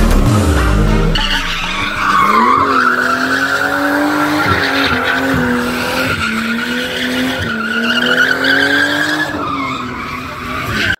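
A car's engine running hard with its tyres squealing in a long, wavering squeal, as in a tight motorsport dexterity run, cutting off suddenly near the end.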